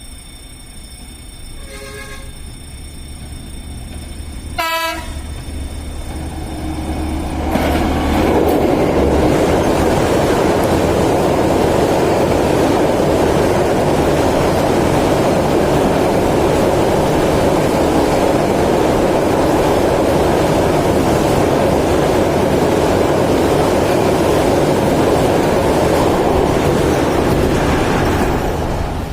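A train horn sounds two short blasts, the second louder, then a train runs past close by with a loud, steady rush and rattle of wheels on rail for about twenty seconds, cutting off sharply near the end.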